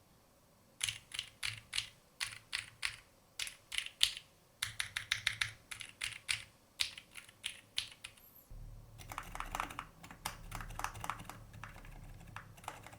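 Typing on a Keychron Q3 mechanical keyboard fitted with Kailh Deep Sea silent switches. It comes as short bursts of keystrokes with brief pauses between them. From about eight and a half seconds in, the typing becomes a faster, steadier run over a low hum.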